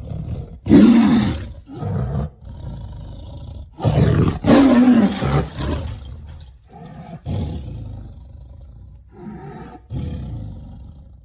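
Tiger roaring: two loud roars, about a second in and about four seconds in, then several shorter, quieter calls before the sound cuts off.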